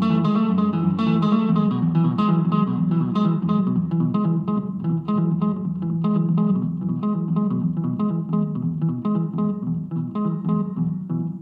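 Guitar music: a quick, even run of plucked notes ringing over a held low line.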